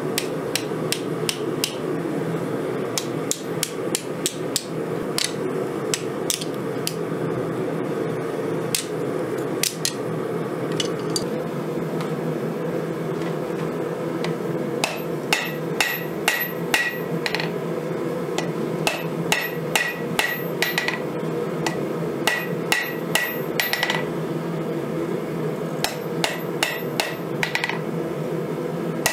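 Hand-hammer blows on a red-hot steel knife blank lying on a chain-wrapped 132-pound Vevor anvil, drawing out the blade. The strikes come a few at a time early on, then from about halfway in in quicker runs of about three a second, each with a short ring. A steady drone runs underneath.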